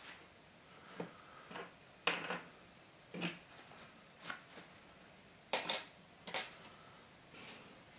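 Irregular light knocks and clicks of watercolour materials being handled on a tabletop: a paint box, brushes and a paper tissue shifted and picked up.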